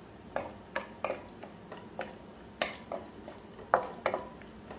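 Cashew nuts frying in ghee in a kadai, stirred and pushed around with a wooden spatula: light, irregular clicks and taps, several a second at times, over a faint background hiss.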